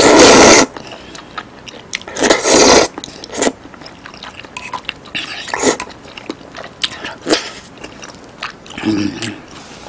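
A person loudly slurping wide Chinese glass noodles coated in curry, with one big slurp at the start and another about two seconds in, then chewing with small wet smacks and clicks.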